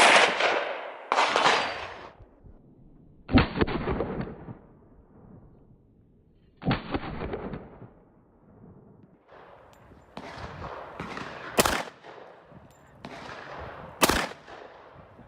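10mm Glock 20 pistol firing a string of about eight shots at uneven intervals, each shot trailing off in a short echo.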